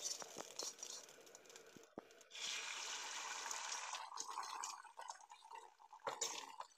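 Beaten egg poured from a steel bowl into hot oil in an iron kadai, sizzling steadily for about two seconds as the omelette spreads, then settling to light crackling. A short tap near the end.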